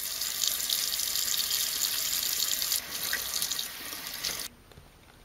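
Tap water running steadily into a sink, shut off abruptly about four and a half seconds in.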